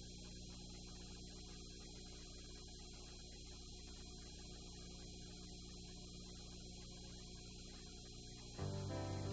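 Faint, steady electrical mains hum with its stack of overtones, and nothing else over it. About eight and a half seconds in, closing theme music starts.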